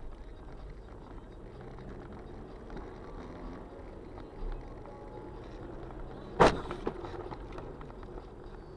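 A car driving, heard from inside the cabin: a steady engine hum with road noise. About six and a half seconds in comes a single sharp knock, the loudest sound, followed by a smaller click.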